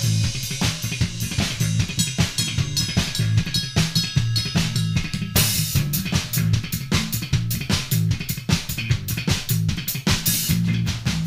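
Drum kit and bass guitar improvising together: fast, busy drum strokes with kick, snare and rimshots over a bass line.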